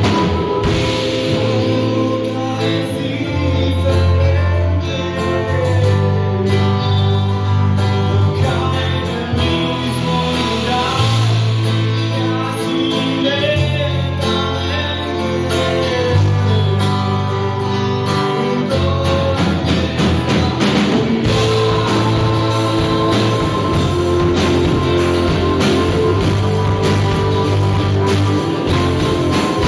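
Rock band playing a song: guitars over a bass line and drums.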